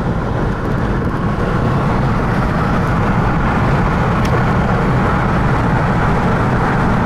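Steady road and engine noise inside a moving car's cabin, a low, even rumble, with a faint click about four seconds in.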